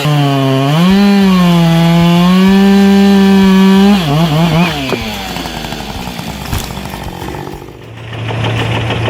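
Chainsaw engine running at high revs, its pitch rising and dipping, then dropping and turning rougher about four seconds in as it cuts into wood. Near the end a steadier, lower engine hum takes over.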